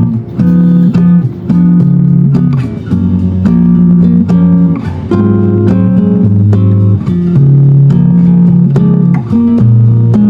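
Chinese-made copy of a Martin D-45 dreadnought acoustic guitar being played for a sound test: chords picked and strummed in a steady rhythm, the chord changing about once a second.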